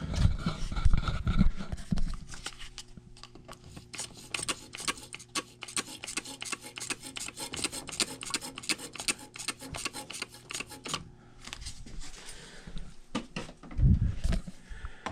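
A hand spray bottle pumped rapidly into a furnace condensate drain line: a fast run of short, sharp squirts lasting several seconds, with a faint steady hum under them. Louder knocks of handling come at the start and near the end.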